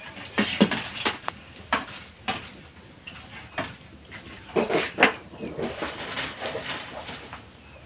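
Metal slotted skimmer scraping and knocking against a wok as frying krupuk crackers are turned and lifted out of the oil: a run of short, sharp clicks and scrapes, busiest about half a second in and again around five seconds in.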